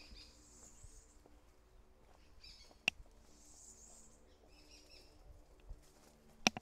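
Birds calling in short scratchy calls several times over a faint steady hum. Two sharp clicks, about three and a half seconds apart, stand out as the loudest sounds.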